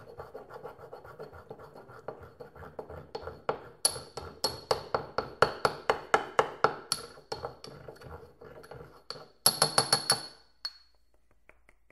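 Ceramic pestle grinding and crushing a tablet in a ceramic mortar: quick scraping, clinking strokes, about four a second, each with a light ceramic ring. A fast flurry of strokes comes just before they stop, about ten seconds in.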